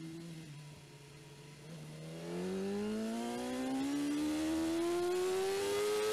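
BMW S1000RR inline-four engine racing from onboard, holding a low, steady note, then about two seconds in accelerating hard in one long rising pull, growing louder.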